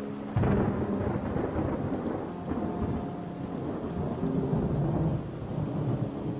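Thunderstorm sound effect: a sudden loud thunderclap just after the start, rumbling on over steady rain, with low held musical notes underneath.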